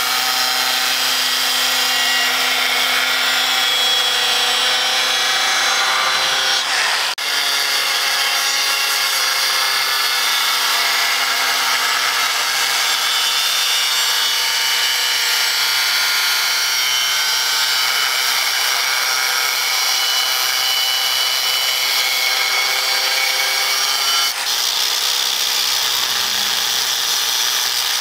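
Angle grinder with a thin cut-off disc cutting through the steel plate of a rusty disc-plough blade: a steady high-pitched motor whine with a harsh grinding hiss. It drops out for a split second twice.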